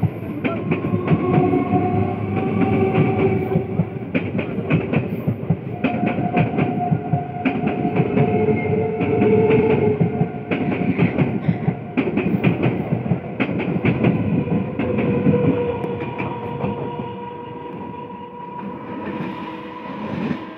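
Electric multiple-unit local train running past: its wheels click steadily over the rail joints over a rumble, with a steady whine from the train. It fades away over the last few seconds as the last coaches go by.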